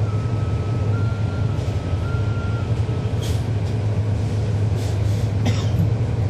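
Cummins ISL9 diesel engine of a NABI transit bus running, heard from inside the cabin as a steady low drone. A faint thin tone steps slightly up and down for the first two and a half seconds, and a few short hisses come about halfway through and near the end.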